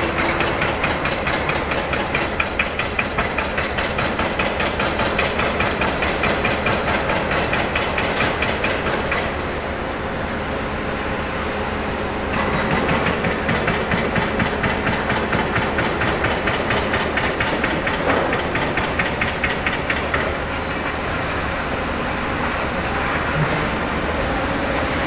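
Large mobile crane's diesel engine running under load, with a fast, even chugging pulse and a steady hiss over it. It eases a little about nine seconds in and picks up again a few seconds later.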